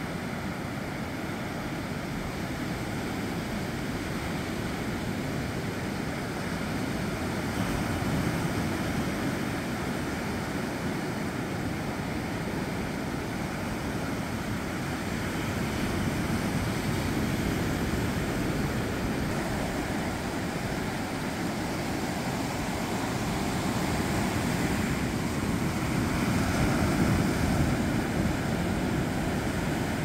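Sea waves breaking on a sandy beach: a steady rush of surf that swells and eases several times, loudest near the end.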